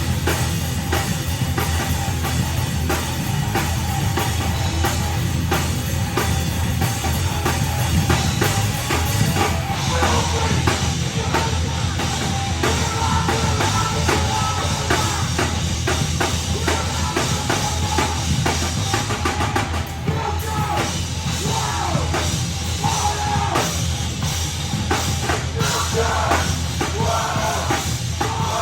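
Live heavy rock band playing loud and steady: pounding drum kit and bass under guitars, with singing in places.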